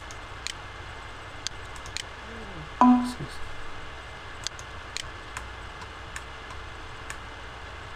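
Light, sharp ticks landing about every half second, with some beats missing. Nearly three seconds in comes a brief, louder pitched sound, just after a faint falling tone.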